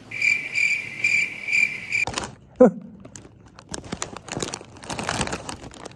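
Cricket chirping, a steady high trill pulsing a few times a second, which stops abruptly after about two seconds. Then crinkling and rustling of plastic snack packets, with a short falling voice-like sound just after the chirping stops.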